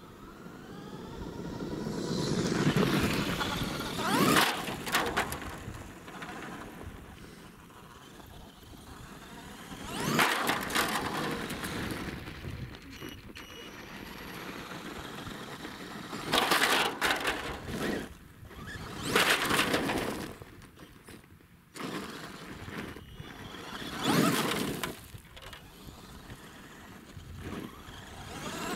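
Electric Axial SMT10 radio-controlled monster truck driving on gravel: a motor whine rises as it speeds up about a second in, then about six runs of tyres crunching and spraying gravel, each swelling and fading a few seconds apart.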